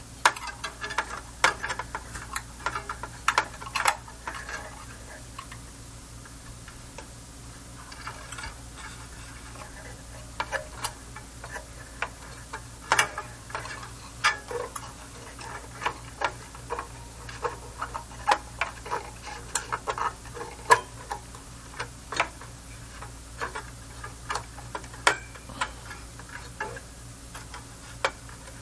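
Irregular small clicks and taps of hand tools and small parts being handled inside an amplifier chassis during repair work, over a steady low hum.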